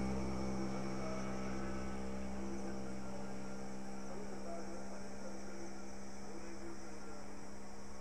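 A steady low hum made of many evenly spaced tones, strongest low down, easing off slightly in level.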